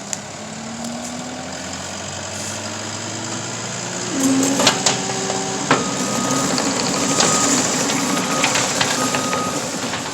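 Case skid steer engine running just after being started, its pitch rising slowly, then getting louder about four seconds in with a few sharp clanks. From about six seconds its backup alarm beeps roughly once a second as it reverses.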